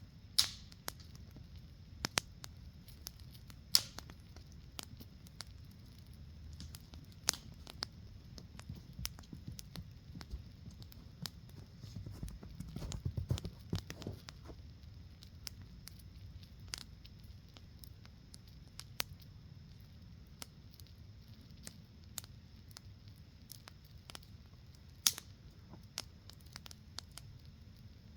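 Scattered sharp clicks and snaps at irregular intervals over a faint low rumble, with a short flurry of knocks and handling noise about twelve to fourteen seconds in.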